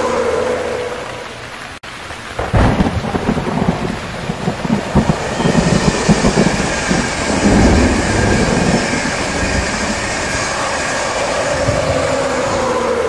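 Heavy rain falling steadily, with a sudden thunderclap about two and a half seconds in that rumbles on for several seconds before fading back into the rain.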